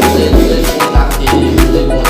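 Background music with a steady beat: a deep bass pulse and percussion about twice a second under sustained keyboard notes, without vocals.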